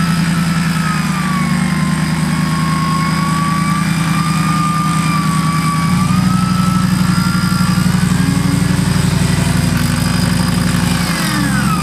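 Off-road 4x4 pickup's engine running steadily under load while an electric winch whines, the whine slowly wavering in pitch as the truck is pulled up a muddy bank. The engine note shifts to a different steady pitch about six seconds in.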